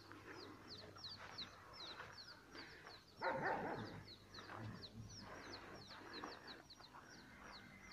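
Many small birds chirping together in a steady run of short, high chirps, several a second. A short louder sound comes about three seconds in.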